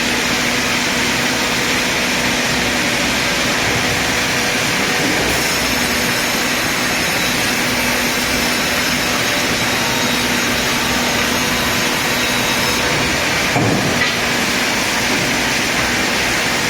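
Sawmill log band saw headrig running, a steady loud hiss with a low hum, as the blade works through a log. A short low thump comes near the end.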